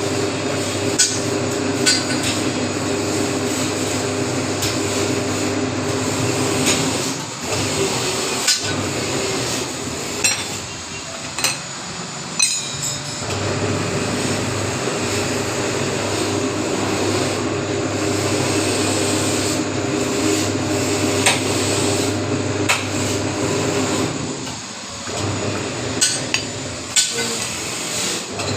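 Square iron bar bending machine running with a steady hum, with sharp metallic knocks and clinks at irregular intervals.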